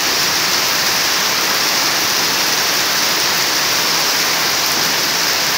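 Heavy rain pouring onto a paved surface: a loud, steady hiss of countless drops splashing.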